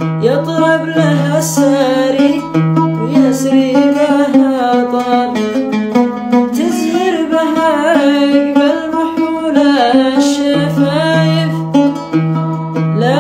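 A man singing a Gulf Arabic song to his own oud, the strings plucked in a steady accompaniment under the wavering vocal line.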